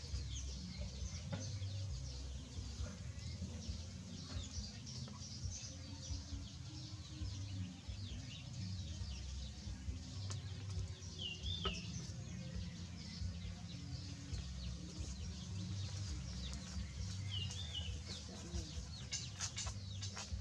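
Outdoor yard birds: continual small high chirps over low clucking. Two short, wavering high calls stand out, about halfway through and again a few seconds later.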